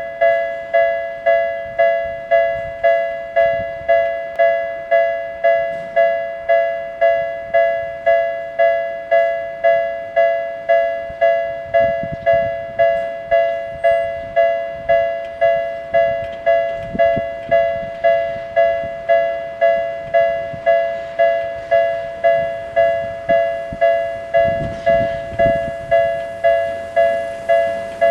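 Japanese railway level crossing warning bell ringing steadily, about three strikes every two seconds. Underneath, a Tokyu 7700 series commuter train passes on the far track, with a low rumble that is strongest near the end.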